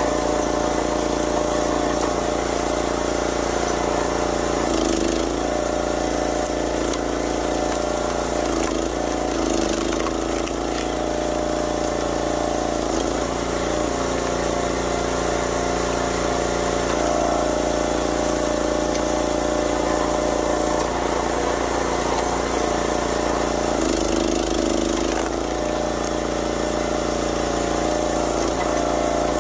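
Small petrol engine of a 25-ton YardMax log splitter running steadily, its note wavering briefly three times.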